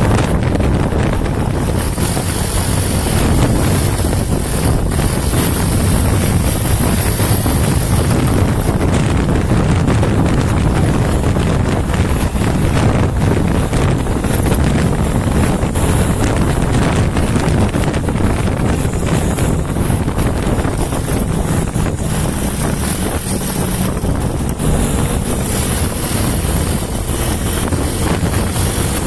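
Honda TMX 125's single-cylinder four-stroke engine running steadily at high revs under way, with heavy wind noise on the microphone.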